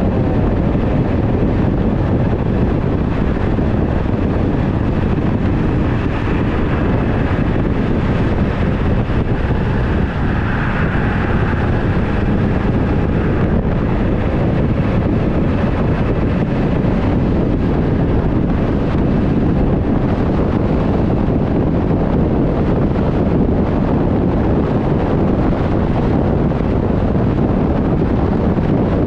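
Steady wind rushing over the microphone of a camera mounted on a fire engine's front bumper at highway speed, mixed with the truck's road noise. A siren winds down and fades out just as it begins.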